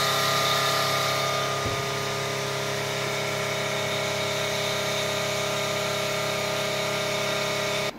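Machine tool cutting a four-start thread on a 220 mm steel friction-press spindle: a steady machine hum with several fixed tones over a hiss of coolant spray. It stops abruptly near the end.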